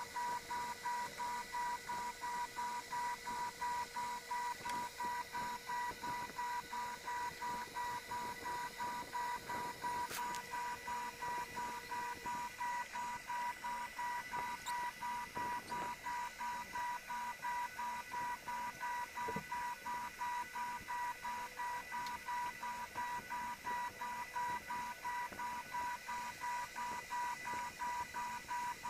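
Electronic beeping tone at a fixed pitch, pulsing evenly about three times a second without a break.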